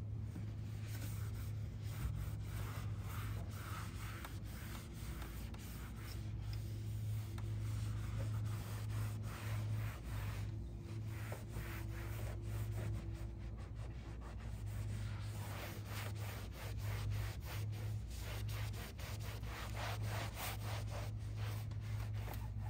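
Cloth rag wiping a car's dusty dashboard in quick back-and-forth rubbing strokes, in several spells, over a steady low hum.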